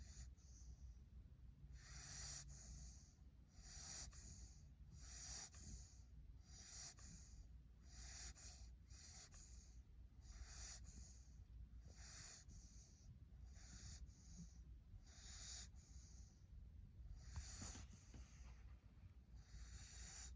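Siberian husky puppy snoring in its sleep: faint, airy breaths about every second and a half.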